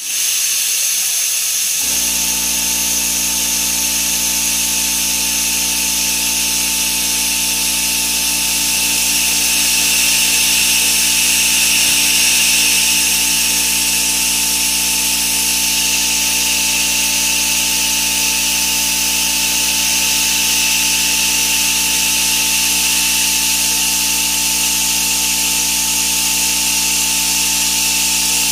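Grizzly G0704 CNC mill's 1/4-inch four-flute solid carbide end mill cutting cold-finished steel at about 2150 RPM, heard as a steady hiss of cutting and mist coolant. The machine's steady hum and whine come in about two seconds in.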